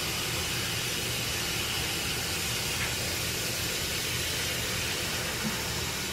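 Kitchen faucet running water into a saucepan, a steady hiss that cuts off suddenly as the tap is turned off at the very end.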